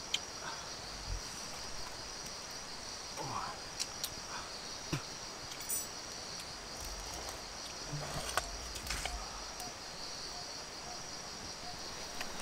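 Crickets chirping in a steady, high, continuous trill, with a few scattered sharp clicks and soft knocks over it.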